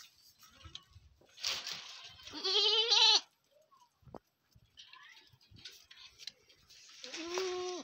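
Young goat bleating twice: a long, quavering bleat about a second and a half in, and a shorter, steadier bleat near the end.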